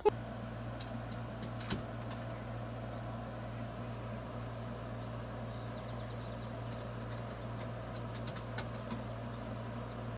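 A steady low machine hum, as of a motor running, unchanged throughout, with a few faint clicks.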